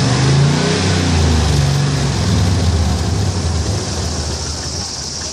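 Pickup truck engine revved with the hood open; its pitch eases back down over the first couple of seconds and it then runs steadily. The revving forces coolant to spray out of a leak in the side of the radiator.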